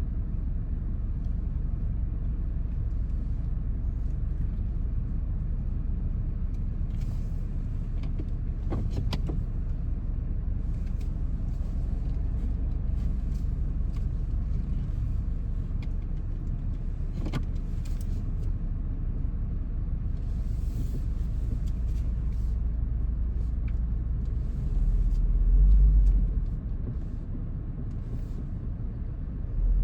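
A road vehicle driving, a steady low rumble of engine and tyres with scattered faint ticks and a louder low surge about 25 seconds in.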